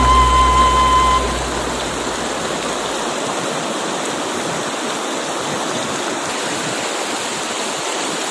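Shallow river running over rocks, a steady rush of water. A held musical note and bass die away in the first second or two.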